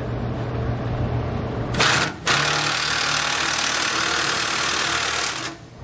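Cordless power tool driving the frame bracket bolts tight into their keeper nuts: a short burst about two seconds in, then a steady run of about three seconds that stops just before the end.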